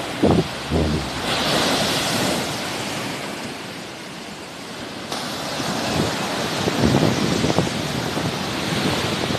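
Sea waves washing in, a rush of surf that swells, eases and builds again, with wind rumbling on the microphone at times.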